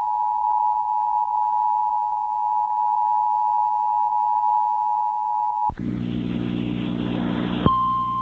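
Emergency Alert System two-tone attention signal, a steady dual tone broadcast over FM radio and recorded on tape. After about six seconds it cuts to about two seconds of hissing static with a low hum. A single steady, slightly higher tone starts near the end, the kind used as the NOAA Weather Radio alert tone.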